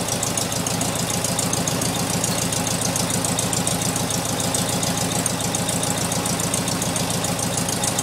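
1972 VW Beetle's air-cooled flat-four engine idling with a misfire, a light popping running through the steady idle.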